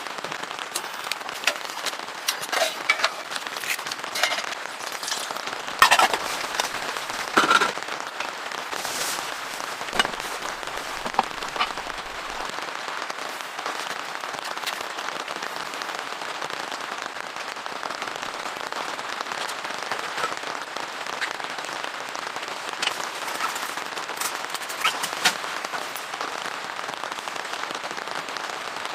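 Steady rain with scattered sharp taps and crackles, most frequent during the first dozen seconds.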